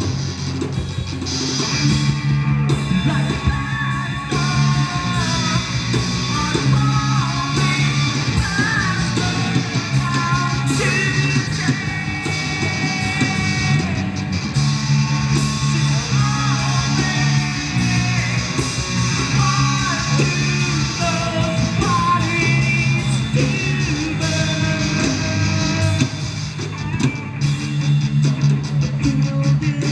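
Live rock band playing: electric guitars and drums, with a singer's voice carrying the melody over most of it and dropping out near the end.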